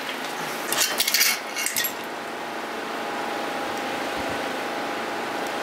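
Metal scooter frame and parts clanking and rattling as they are handled, in a cluster of knocks about a second in, followed by a steady background hum.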